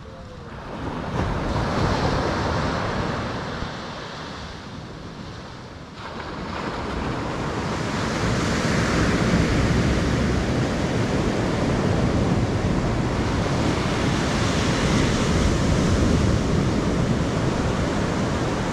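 Small surf breaking and washing up a sandy beach, in slow swells, with some wind. About six seconds in, the sound jumps to a louder, steadier wash of waves.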